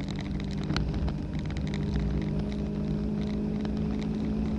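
Car engine under full load at near-steady high revs, heard from inside the cabin, with wind and road noise at about 90 to 100 mph and a few faint cabin ticks.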